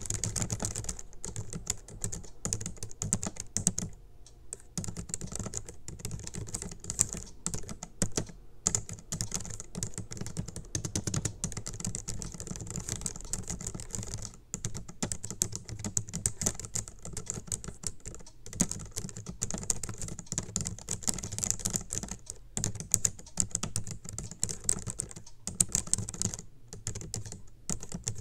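Fast, continuous typing on a low-profile Logitech computer keyboard: a dense clatter of key presses from both hands hitting random keys, with a few brief pauses.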